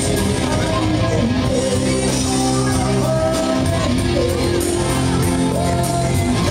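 Live rock band playing: electric guitar, bass guitar, drums with cymbals and keyboard, with a male lead singer singing into a microphone over them.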